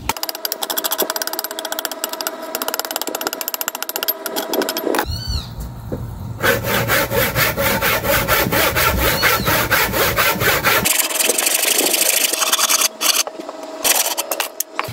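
Handsaw cutting through a thin round log of green tree trunk, with quick, even back-and-forth strokes that grow loudest in the middle stretch.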